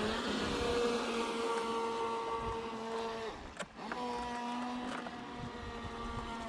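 Electric RC speedboat motor whining steadily at speed, its pitch climbing briefly at the start. It cuts out for a moment about three and a half seconds in, then picks up again.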